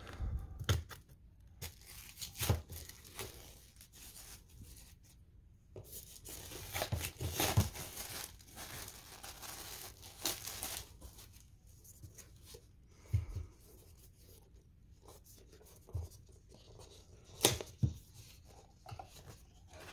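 Clear plastic shrink-wrap being torn and peeled off a Blu-ray box: irregular crinkling and ripping in several separate spells, with short quiet gaps between them.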